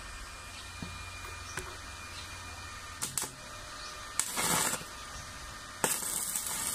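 Stick welding with a repaired inverter arc welder. The electrode strikes briefly about three seconds in and again about four seconds in, the second time a short burst of arc, and then the arc catches near the end and runs with a steady loud hiss. The machine now has output at the electrode holder.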